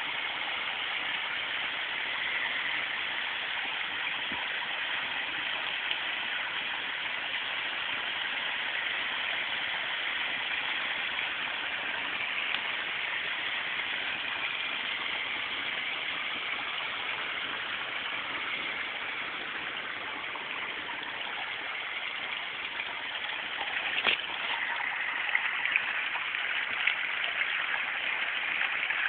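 Water from a small rock waterfall pouring and splashing steadily into a garden koi pond, a little louder and more splashy in the last few seconds.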